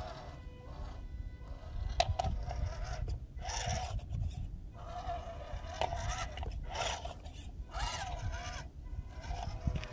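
WPL C24 radio-controlled crawler truck's electric motor and gears whining in short bursts that rise and fall in pitch as it is throttled up a steep slab, with one sharp click about two seconds in.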